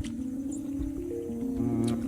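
Background music: slow held chords that change pitch in steps, with a deep bass note coming in near the end.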